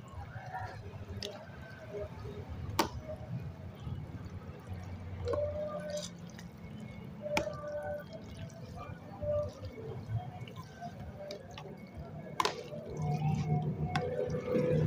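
Metal forks tossing saucy spaghetti in a plastic tub: wet squelching of the noodles with a few sharp clicks of the forks against the plastic.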